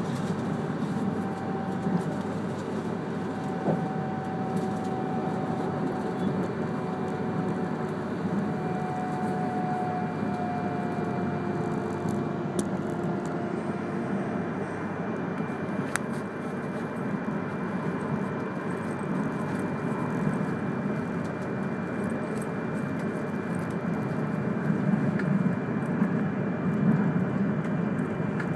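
E3-series Akita Shinkansen Komachi train running along the Ōu Line, heard inside the passenger car: a steady rumble of wheels on rail, with faint whining tones in the first half and a little louder near the end.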